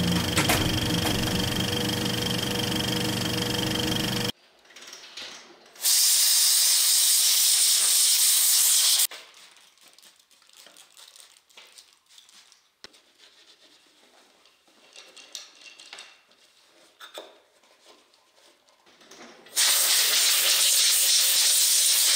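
An engine-like intro sound cuts off about four seconds in. Then a compressed-air blow gun on a shop air hose gives two steady hissing blasts, each about three seconds long and about thirteen seconds apart, with faint handling noises between them.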